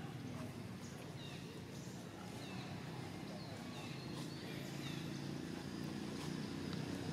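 Outdoor background ambience: a steady low rumble with short, high chirps scattered through it.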